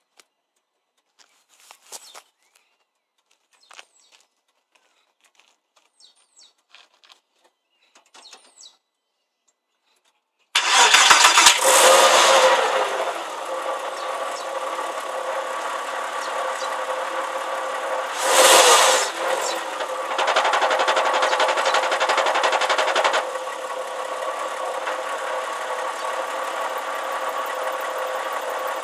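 A few faint clicks, then the flat-six engine of a Porsche Boxster 986 starts about ten seconds in, runs up briefly and settles into a steady idle. There is one short loud surge a few seconds later and a louder stretch of a few seconds soon after. The owner reports a squeaking and rumbling from the gearbox that stops when the clutch pedal is pressed, on a clutch changed less than 1000 miles ago.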